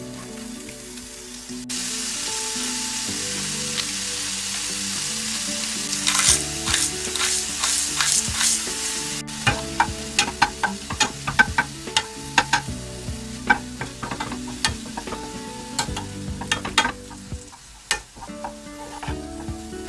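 Ground pork sizzling in a hot nonstick frying pan, the sizzle starting about two seconds in. From about six seconds, a spatula scrapes and knocks against the pan in quick strokes as the meat is broken up and stirred.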